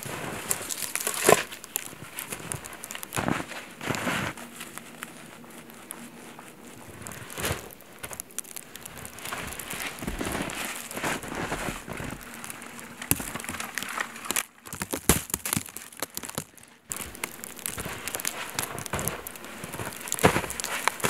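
Boots crunching through deep snow, an irregular run of footsteps and kicks with a few louder stamps.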